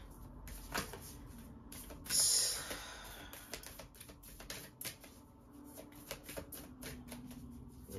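A deck of oracle cards being shuffled by hand: a run of quick, light card snaps and flicks, with a louder rush of cards about two seconds in.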